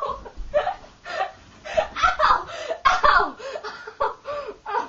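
Girls laughing and giggling in short, breathy bursts while wrestling, with a low rumble of bumping during the first three seconds.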